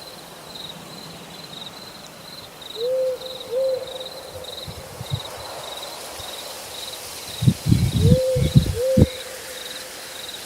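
An owl hooting in two pairs of short, arched hoots, the second pair about five seconds after the first, over the steady pulsing chirp of crickets. A few low knocks come with the second pair of hoots.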